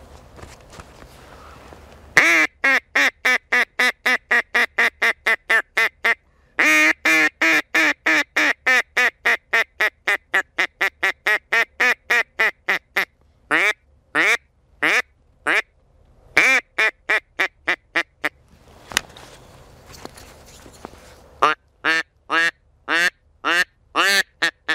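Hunter's duck call blown in long, fast series of loud quacks, about four a second, slowing into single quacks and then breaking into another quick run near the end: calling to draw ducks to the decoys.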